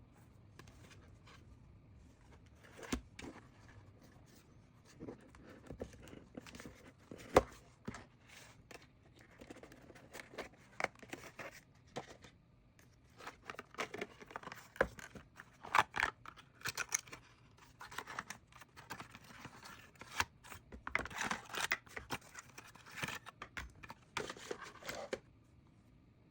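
Smartwatch packaging being torn open and handled: tearing and crinkling with scattered sharp clicks and taps. It gets busier in the second half and stops about a second before the end.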